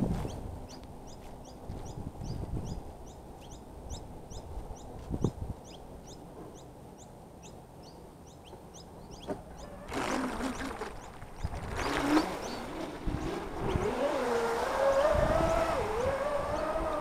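Twin brushless electric motors of a 41-inch carbon-fibre RC catamaran: two short loud bursts as the throttle is blipped about ten and twelve seconds in, then a whine that rises and wavers in pitch with the throttle as the boat runs off at speed.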